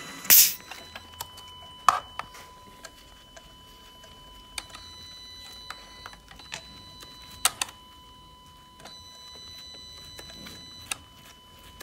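A short hiss as the compression gauge's pressure is let out, then scattered light clicks and knocks of the gauge's screw-in adapter and hose being worked loose from a spark plug well on the VW 2.0 FSI engine, which is not running. A faint steady high tone runs underneath.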